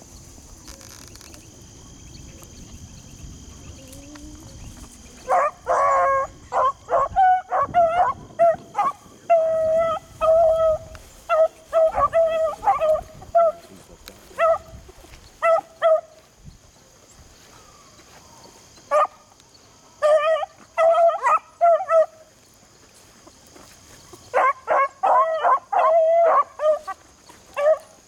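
Beagles baying on a rabbit's trail: short, high, yelping bay notes in bunches that start about five seconds in, with two pauses of a couple of seconds.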